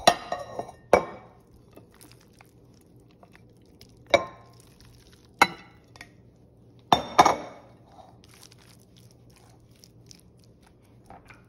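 Sharp clinks and knocks of a spatula and bowls as potato salad is scooped from a glass mixing bowl into a ceramic serving bowl. There are about six separate knocks with quiet gaps between them, the last two close together, then only faint handling sounds.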